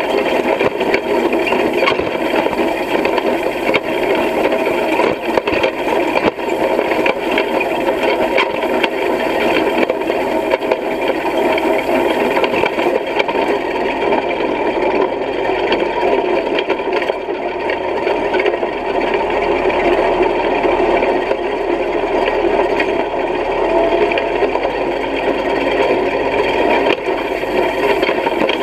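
Hay rake at work: its reel of tine bars turning and sweeping hay, giving a loud, steady, dense mechanical rattle and clatter.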